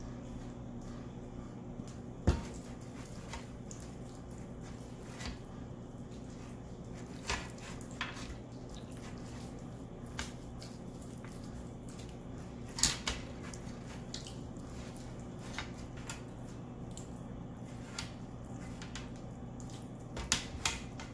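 Hands rubbing yellow mustard over a whole raw chicken, with soft wet handling sounds and a scatter of sharp knocks and clicks as the bird and the squeeze bottle meet the wire rack and sheet pan. The loudest knocks come about two seconds in and about halfway through. A steady low hum runs underneath.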